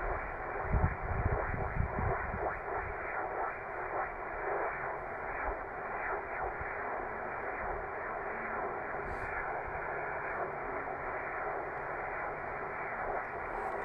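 Steady static hiss from a Yaesu FT-450D HF transceiver's speaker: band noise squeezed into the radio's narrow voice passband with no clear signal, a sign of poor band conditions. A few low rumbles come in the first two seconds.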